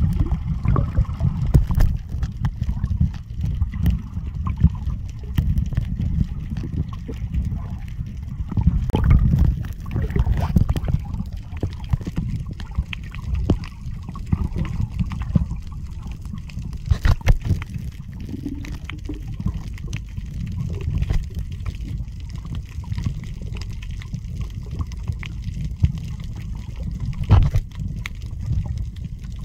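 Underwater audio from a camera held beneath the surface while snorkeling: a steady muffled rumble of water, with scattered clicks and crackles all through.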